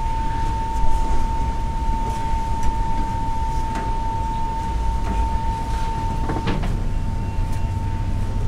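Indoor room noise: a low rumble with a constant high-pitched whine over it, and a few faint knocks and clicks.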